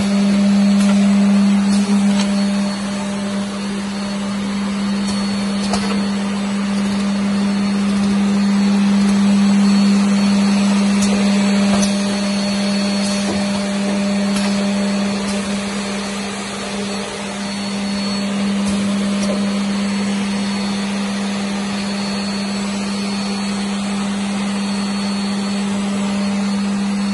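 Six-spindle double end tenoner running: a loud, steady machine hum over a constant hiss, with a few faint clicks.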